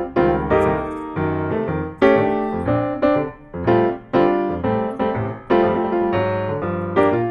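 Background piano music, with notes and chords struck about twice a second.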